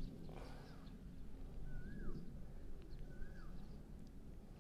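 A bird calling: three short whistled notes, each rising and then dropping, about a second and a half apart, over a faint outdoor background.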